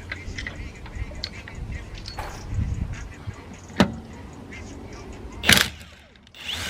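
Metal clicks and knocks of a socket wrench being fitted onto a car wheel's lug nut. There is one sharp click about four seconds in and a louder clatter a second and a half later.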